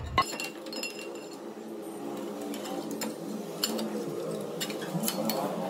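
Metal clinks and taps from a steel plate being handled and set in the jaws of a cast-iron bench vise, with several sharp clinks scattered through.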